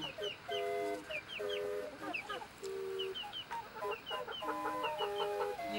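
A flock of hens clucking and calling, with repeated drawn-out calls and short high peeps in quick groups of two or three.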